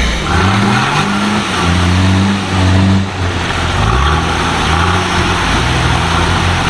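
A 4x4's engine revving on the off-road course, its pitch climbing, holding and dropping back several times.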